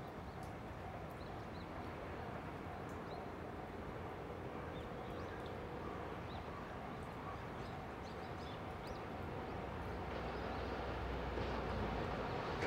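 Faint outdoor background with small birds chirping now and then; from about ten seconds in, the low rumble of an approaching freight train grows steadily louder.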